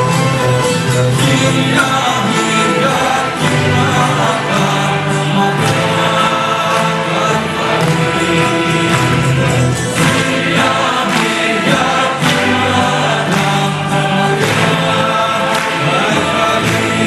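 Music from a Greek song, with choir-like singing in long held notes over instrumental accompaniment.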